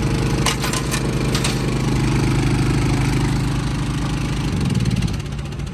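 Westinghouse iGen4500 inverter generator running steadily, with a few sharp clicks between half a second and a second and a half in. About four and a half seconds in it is shut off by its remote key fob, and its engine note drops and dies away, leaving a lower, steadier engine hum.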